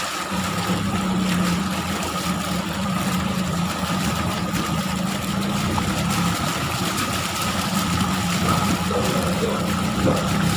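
A motor running steadily at an even pitch, with water rushing and splashing over it.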